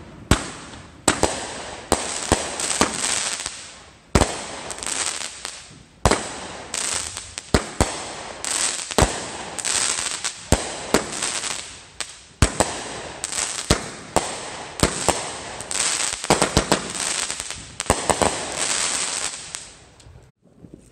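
Aerial fireworks going off in quick succession: sharp bangs every half second to a second, each trailing into a crackling hiss of bursting stars. The barrage stops shortly before the end.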